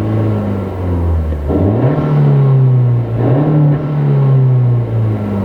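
2022 Honda Civic Si's 1.5-litre turbocharged four-cylinder engine revving, heard from inside the cabin. The revs climb about one and a half seconds in, hold high with a brief dip, then drop back near the end.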